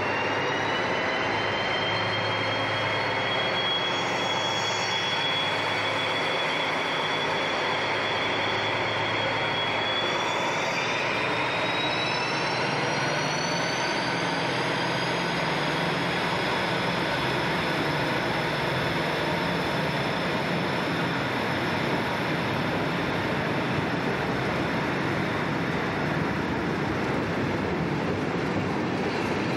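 Diesel-hauled freight train of boxcars running past at close range, with a steady heavy rumble. A high whine climbs in pitch a little before the second locomotive comes by, then the wagons roll past steadily.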